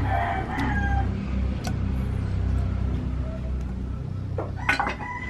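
Chickens in the background, clucking about the start, then a rooster beginning to crow near the end, all over a steady low rumble.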